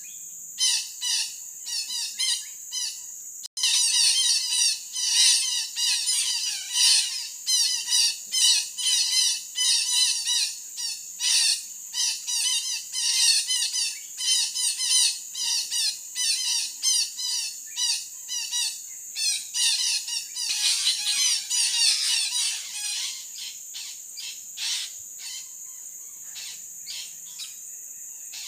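Betet parakeets squawking over and over, in short harsh calls about two a second. The sound drops out for an instant about three and a half seconds in, and the calls thin out in the last few seconds.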